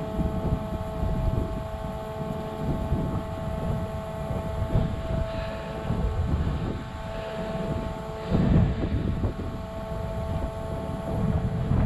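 Wind buffeting the microphone, over a steady two-tone hum.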